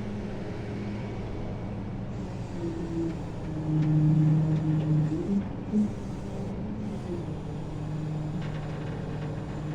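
Flatbed tow truck's engine running with its hydraulics engaged, a steady hum that rises in pitch and gets louder from about three and a half seconds to five seconds in, then settles back to a steady tone.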